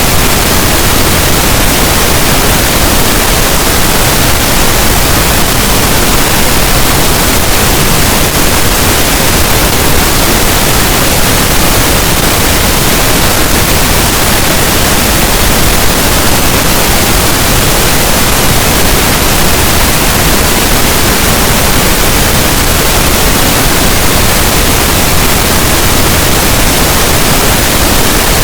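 Pink noise: a steady, even hiss across the whole range of pitches, unchanging throughout.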